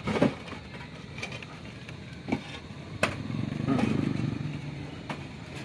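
Terracotta roof tiles knocking and clinking as they are handled and set in place on the roof battens, a few separate sharp knocks. About halfway through, a low engine hum comes in behind them and carries on.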